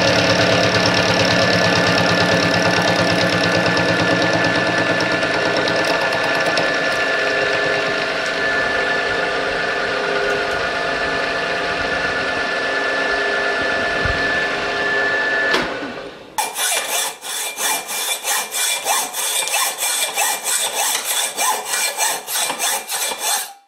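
Milling machine face milling a steel block with a 20 mm roughing end mill: the spindle runs under load with the cutter chewing through the steel and a steady high tone, for about fifteen seconds, then cuts off suddenly. After that comes a fast, even ticking rhythm, about three ticks a second.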